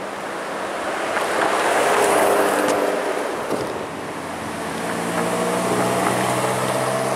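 Ferrari supercars driving past. First a passing car swells and fades, then a Ferrari 458 Spider's V8 runs at low, steady revs as it rolls slowly by, its note rising slightly near the end.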